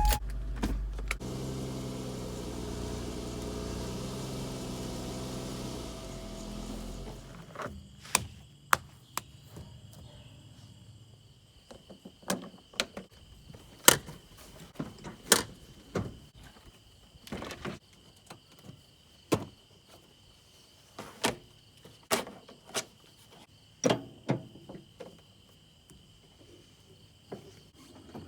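A motor runs steadily for about seven seconds and stops. After it come scattered sharp knocks and clicks.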